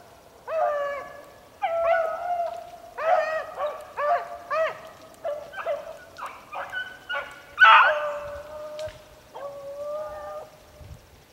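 A pack of beagles baying on the track of a rabbit they are running: a string of about a dozen hound bays, some short and some drawn out, stopping shortly before the end.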